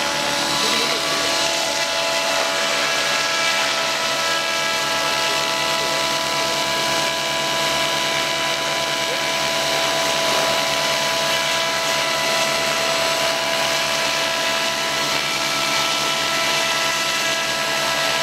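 Radio-controlled AS-350 Esquilo scale helicopter hovering low: a steady high-pitched motor whine over a fast, even rotor beat.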